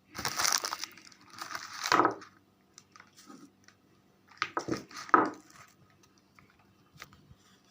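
Liquid poured from a small bottle into a container in three short spells, with small clicks of the bottle being handled between them.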